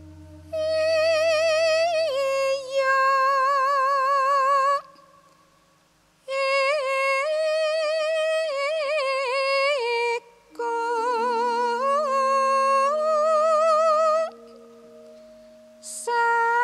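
Javanese gadhon gamelan music in slendro: a solo melodic line with wide, wavering vibrato sung or played in phrases of a few seconds with short pauses between them, over long ringing low bronze notes that fade slowly.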